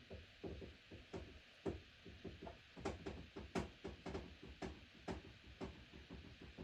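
Light, irregular taps and knocks on the plastic housing of a Honeywell cool-moisture humidifier, about two or three a second, over a steady faint hiss.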